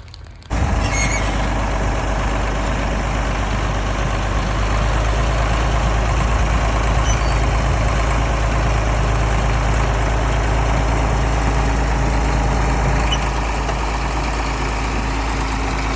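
Engine of a 60-year-old bulldozer running steadily and loud, close up, coming in suddenly about half a second in.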